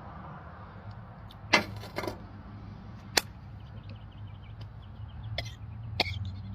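A man coughing and gagging in a few short bursts, the loudest about a second and a half in, set off by a shot of Jägermeister mixed with mayonnaise. A few sharp knocks come in between, over a low steady hum.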